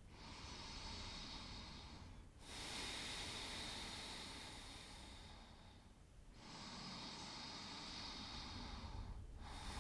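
A woman's slow, deep breaths, in and out through the nose or mouth, close to the microphone. Each soft, airy breath lasts two to three seconds, with a brief pause between them.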